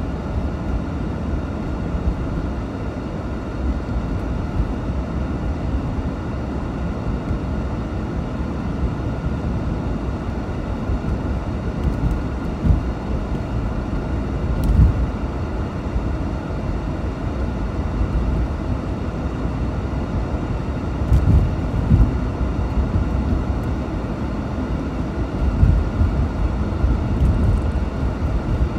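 Steady low rumble of engine and road noise heard from inside the cabin of a moving 1989 Mercedes-Benz 560 SEL, with a few short low thumps partway through.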